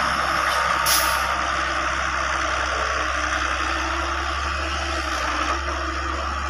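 Heavy diesel engine running steadily, with a short burst of air hiss about a second in.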